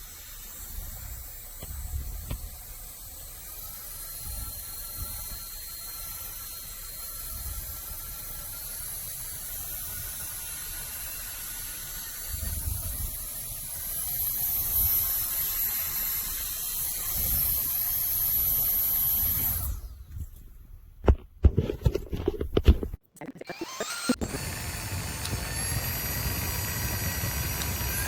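A small handheld electric fan running with a high, thin motor whine and rushing air, with low buffeting against the microphone. Between about 20 and 24 seconds in, the sound cuts out and a few sharp clicks and knocks come through, as from handling.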